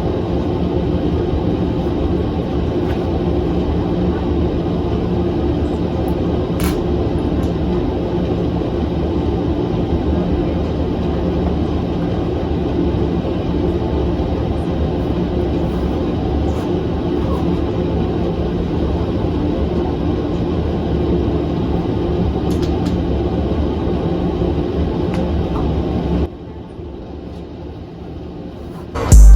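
Steady low rumble of a vehicle in motion, heard from inside, with a constant low hum. About 26 seconds in it cuts abruptly to a quieter hum.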